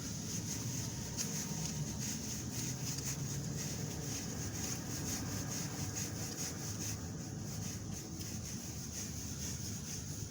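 New tie rod end being turned by hand onto the threaded tie rod: a steady metal rubbing and scraping with many small irregular ticks over a constant high hiss.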